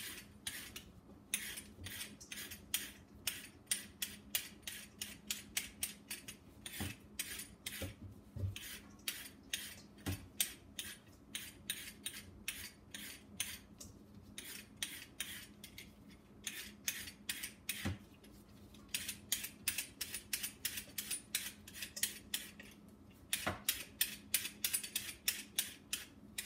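Vegetable peeler scraping the skin off a carrot in quick repeated strokes, about three a second, with a few short pauses, over a faint steady hum.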